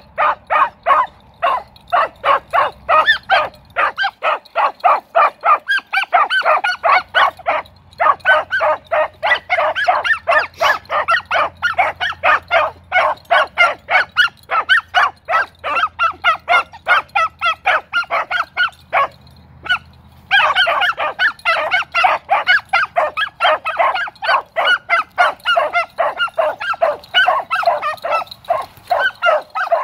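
Beagles giving tongue on a rabbit's scent: fast, continuous chop barking, several short barks a second, with a brief break about two-thirds of the way through.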